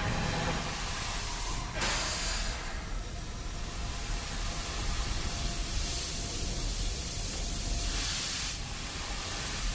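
Sound-design recreation of a steam locomotive overhaul shop: a steady low rumble of the shop with releases of steam hiss, one starting sharply about two seconds in and a longer one from about six seconds in.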